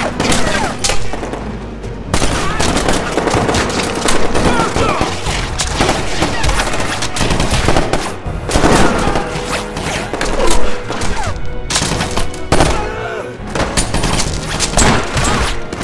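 Gunfire in a close-quarters firefight: rapid automatic rifle shots in quick, overlapping volleys that keep up the whole time, over film score music.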